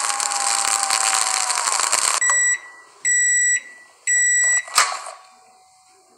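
Microwave oven running with a steady hum that stops about two seconds in, then three beeps signalling the end of the heating cycle. A sharp click follows as the door is opened.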